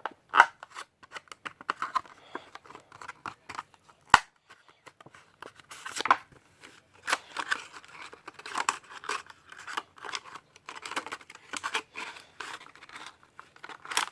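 Packaging of a diecast toy car being opened by hand: irregular tearing, crinkling and rustling of box and plastic, with two sharp clicks, one about half a second in and one about four seconds in.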